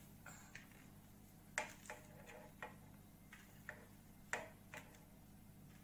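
Faint light taps and clicks, about ten of them at uneven intervals, the two strongest about a second and a half and four seconds in: fried chana dal vadas and the serving utensil being set down on a serving plate.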